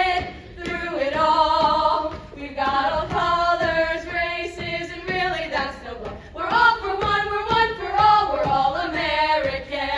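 A group of young women singing a show tune together, holding long notes.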